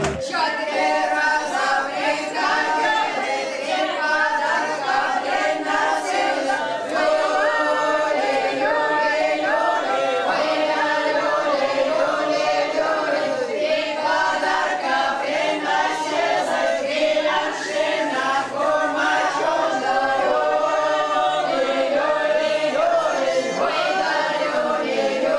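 A group of voices, women and men, singing a folk round-dance song together without instruments.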